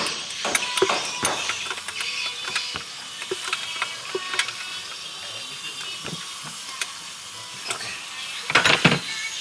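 Hand tools working on metal during engine assembly: irregular ratchet-like clicking and light clanking, with a louder flurry of clicks and knocks near the end.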